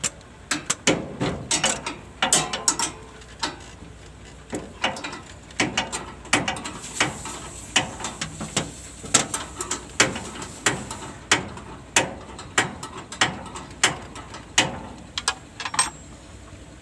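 Hand ratchet wrench clicking in short uneven runs of sharp metal clicks, about two to three a second, as bolts are worked loose.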